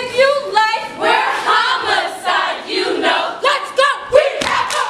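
A women's step team chanting and shouting in unison, with a few stomps near the end.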